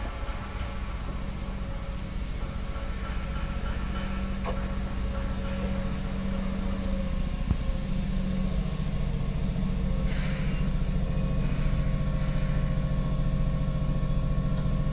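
Keihan 6000-series electric train arriving slowly at a station platform. A steady low hum grows louder as it draws alongside, with a click about seven and a half seconds in and a short hiss about ten seconds in.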